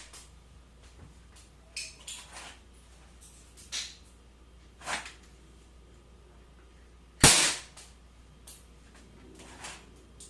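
KWC PT 24/7 CO2 BB pistol firing a single sharp shot about seven seconds in. Fainter clicks and knocks come in the seconds before the shot and once after it.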